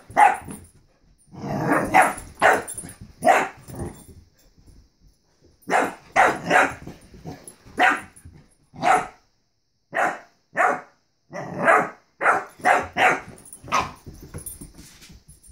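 Puppy barking repeatedly: short, sharp barks in quick runs, with a pause of a second or two about four seconds in.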